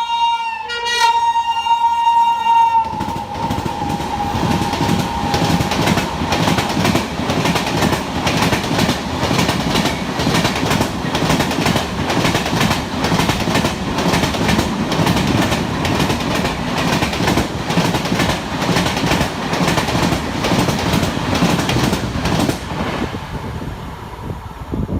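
A WAP-7 electric locomotive sounds a shrill horn for about two and a half seconds, its pitch dropping as the locomotive passes. It is followed by an express train passing at full speed, about 130 km/h, with a fast, rhythmic clatter of wheels over rail joints that fades near the end.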